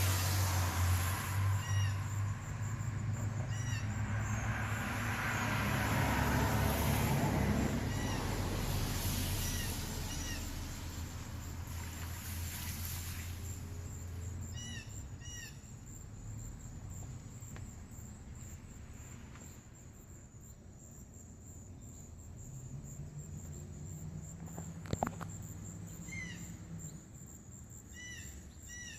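Short bird calls repeated in small clusters, over the rumble and hiss of road traffic passing, heaviest in the first half. A single sharp click sounds near the end.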